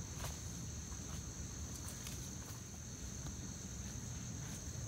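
Insects singing a steady, high-pitched drone over a low rumble of outdoor background noise, with a few faint clicks of footsteps on leaf litter and twigs.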